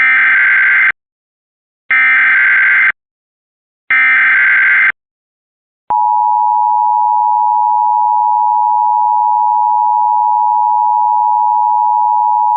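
Emergency weather alert signal for a tornado warning: three short, harsh, buzzing digital header bursts (SAME data) a second apart, then a long steady high alert tone that begins about six seconds in.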